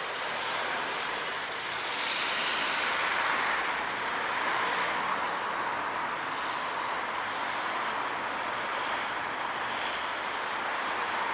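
Town-centre road traffic: a steady wash of cars passing, swelling for a couple of seconds a couple of seconds in.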